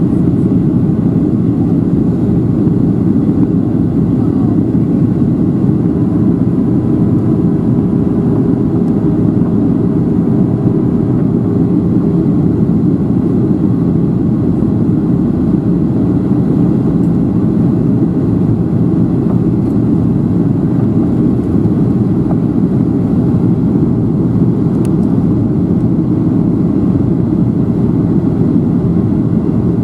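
Steady cabin noise inside a Boeing 737-700 on descent: the even drone of its CFM56-7B turbofan engines mixed with rushing airflow, heard through the fuselage.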